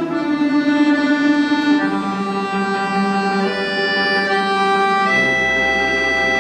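Orchestra of Russian folk instruments playing a slow passage of held chords. The harmony shifts about two seconds in and again near three and a half seconds, and about five seconds in a new chord enters with a deep bass note underneath.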